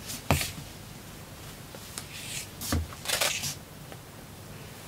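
Handling noises as a cotton half-width obi is picked up and handled: a sharp knock just after the start, then cloth rustling with a soft thump around the middle.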